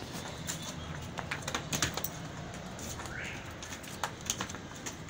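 Scattered sharp taps and knocks from two goats sparring on a concrete floor, with a short rising bird chirp about three seconds in.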